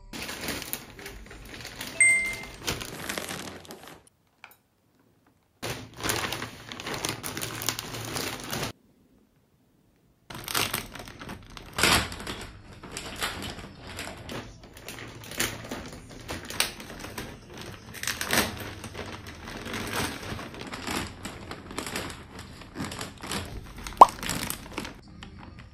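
Plastic poly mailer bags crinkling and rustling as they are handled and pulled open, with a short tone about two seconds in and one sharp knock near the end. The sound drops out completely twice for a second or so.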